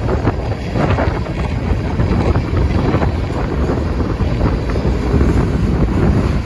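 Freight train of covered hopper cars rolling past: a steady, loud rumble of steel wheels on rail, with wind buffeting the microphone.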